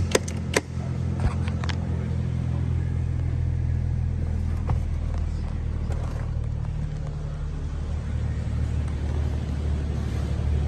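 A 2012 BMW 335i's 3.0-litre turbocharged straight-six idling with a steady low hum, with a few sharp clicks in the first two seconds.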